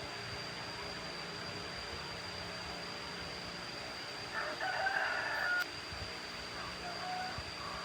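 A rooster crowing once, about four seconds in, over a steady background hum with a constant high whine.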